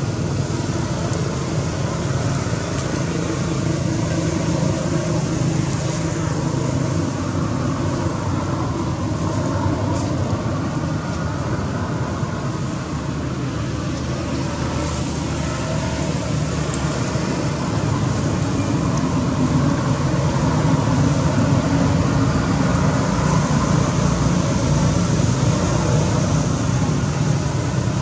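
Steady outdoor background noise: a constant low rumble with hiss, like distant traffic, running without a break.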